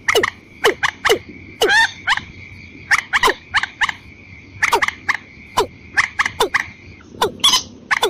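Watercock and rail calls played as a bird-lure recording, in a duet. Rapid, irregular clusters of short, sharply falling notes, with a few longer, fuller notes, over a steady high tone.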